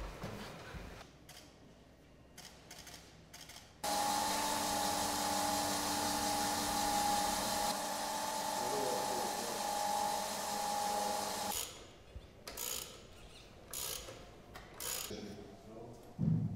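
Workshop assembly sounds: a few light clicks, then a steady mechanical whine over a hum for about eight seconds that cuts off suddenly, followed by scattered clicks and clatter of tools and parts.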